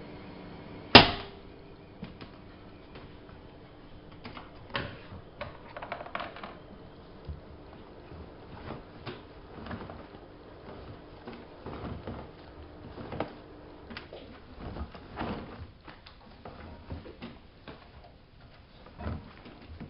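A sharp knock about a second in, then scattered light clicks and knocks, over a faint steady hum that stops a little past halfway.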